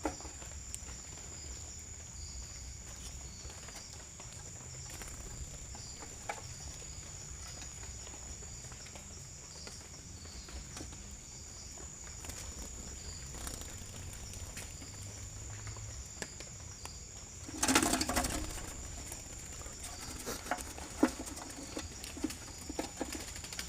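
Zebra dove beating its wings in one short burst about three-quarters of the way through, over a steady high tone and a low rumble, with a few sharp clicks near the end.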